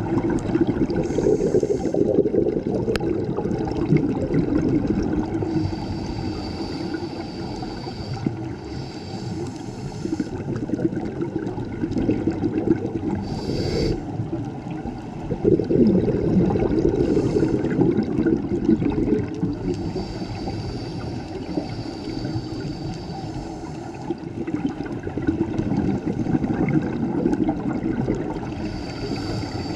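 Scuba diver breathing through a regulator, heard underwater: bubbling surges of exhaled air every several seconds, with a higher hiss between them.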